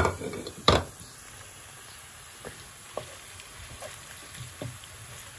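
Minced beef frying with chopped onions in a non-stick wok, a faint steady sizzle. A wooden spatula knocks sharply against the pan twice in the first second, then taps lightly a few more times as it stirs the meat.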